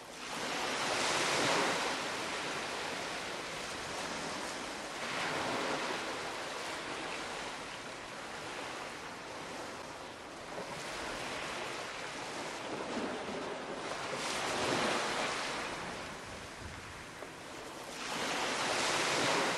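Ocean waves breaking and washing onto a shore. Each surge swells and falls back every four to five seconds.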